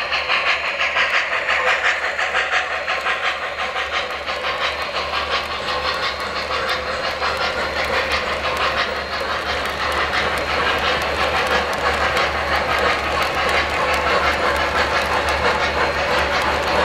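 Three-rail O-scale model train, an N&W J Class steam locomotive hauling lit passenger cars, rolling past close by. Wheels click rapidly and continuously over the track, over a steady hiss and a low hum.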